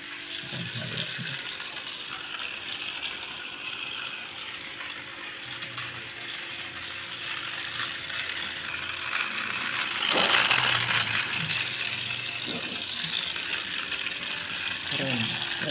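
Battery-powered Rail King Intelligent Classic Train toy locomotive running on its plastic track, its small motor and plastic gears whirring and the wheels rattling along the rails. The whirring swells louder for a moment about ten seconds in.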